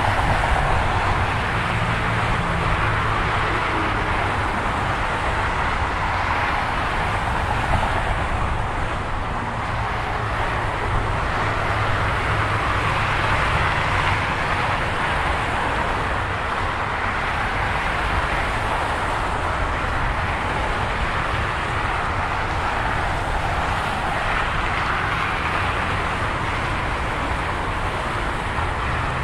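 Steady freeway traffic heard close up: tyre and engine noise of vehicles passing at speed, swelling and easing as they go by, over a low engine hum.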